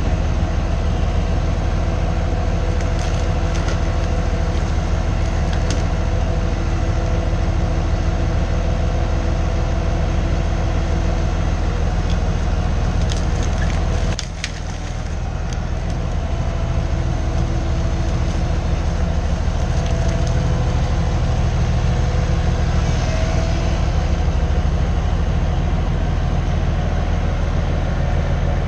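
Heavy diesel equipment engine running steadily under work, with wood cracking and splintering a few times as storm-downed timber is handled, and a brief dip in the engine noise about halfway through.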